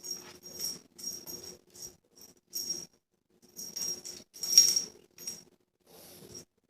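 A small bell in a cat toy jingling in short irregular bursts as a kitten bats and chases it, the loudest bursts coming about four and a half seconds in.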